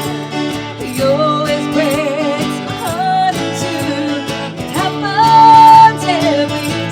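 A rock-country band playing, with guitars under a wavering lead melody line. About five seconds in, a long high note is held, the loudest moment.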